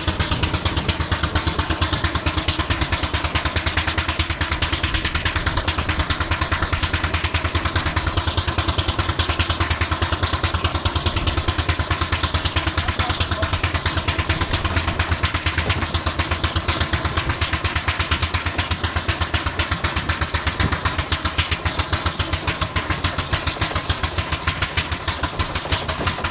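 Miniature steam traction engine driving on the road under steam, its exhaust beats chuffing in a steady, even rhythm.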